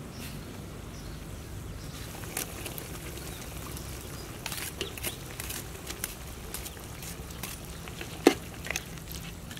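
A pot of duck stew bubbling at the boil, with scattered clinks of a metal ladle stirring against the metal pot; the loudest knock comes near the end.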